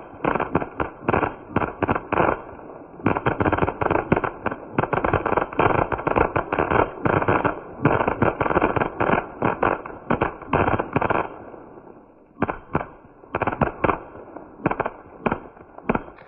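Ground fountain fireworks going off: a continuous spraying hiss with rapid crackling pops. The crackle is densest through the middle and thins to scattered single pops near the end.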